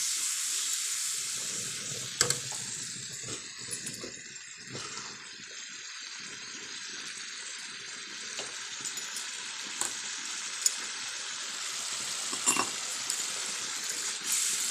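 Spice masala, loosened with a little water so it doesn't burn, sizzling in a kadai over a gas flame while a spatula stirs and scrapes through it. A few sharp clinks of the spatula against the pan.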